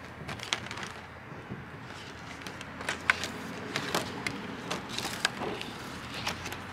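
Irregular light clicks and rustles of laminated menu cards being handled and slid across a woven rattan table.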